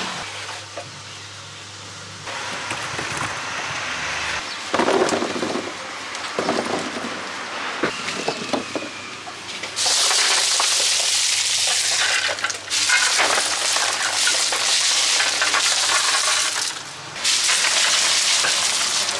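Ice cubes poured from a plastic basket over piled fruit, a loud, dense clatter of ice in three long pours through the second half, after a few light knocks of fruit being handled.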